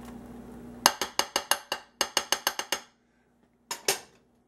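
A bowl rapped fast against the rim of a ceramic slow-cooker crock to knock out the last of the diced onion. The sharp, ringing clinks come in two quick runs of about half a dozen each, then two more near the end.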